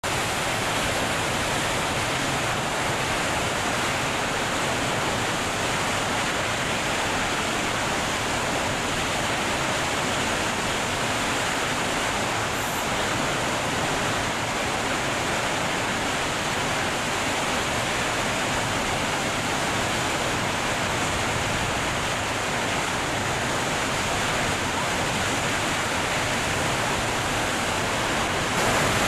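A large waterfall rushing steadily, a dense, even wash of water noise.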